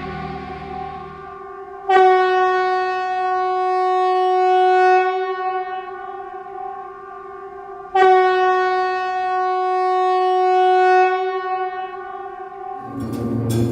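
A long, steady horn-like note sounds twice at the same pitch, about six seconds apart. Each note starts sharply, holds for a few seconds and then fades slowly. Low musical rumbling with clicks comes in near the end.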